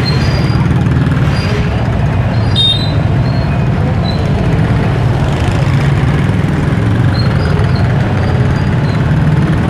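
Busy street traffic: small engines run steadily in a dense rumble, with a brief high squeal a little under three seconds in.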